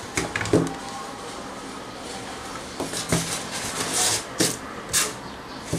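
Handling noise of a small plastic adapter box and its wire being moved and set down on a hard surface: scattered clicks, taps and rustles, the sharpest about half a second in and again around three, four and five seconds in.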